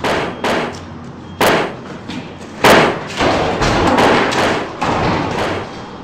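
A rapid run of heavy thumps and rough noise bursts, about seven in six seconds, the loudest about three seconds in.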